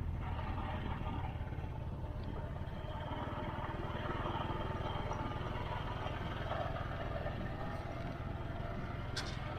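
Motorcycle engine running steadily while riding, with rumbling wind noise. There are a few sharp clicks near the end.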